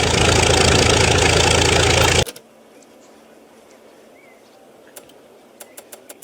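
A loud, steady engine-like running noise that stops abruptly about two seconds in, followed by a quiet stretch with a few small clicks near the end.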